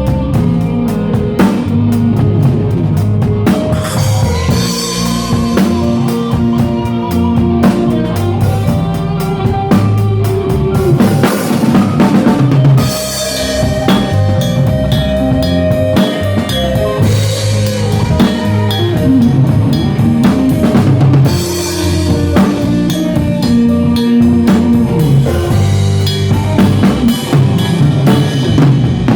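A band playing. A drum kit with bass drum, snare and rimshots keeps a steady beat under held melodic notes and chords.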